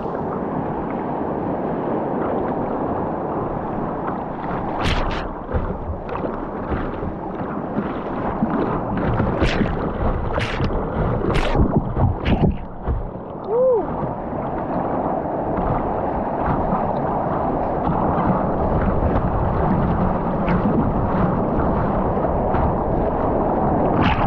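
Whitewater rapid rushing around a kayak's bow, with waves splashing over the bow-mounted camera. There are sharp splashes about five seconds in, a cluster of them around ten to twelve seconds, and more near the end.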